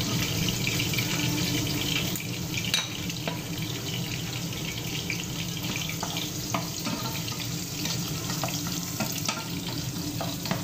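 Garlic sizzling in hot cooking oil in a pan: a steady hiss with scattered small crackles.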